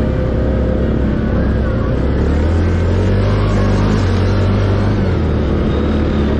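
Can-Am ATV engine running under the rider on a rough dirt climb. It revs up about two and a half seconds in and eases off near the end.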